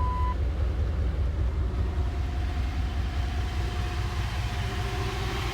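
Idling 5.2-litre V8 with a belt-driven Sanden 605 six-cylinder compressor running off it as onboard air, a steady pulsing low rumble. A faint whine comes in about two seconds in, and a short electronic beep ends right at the start.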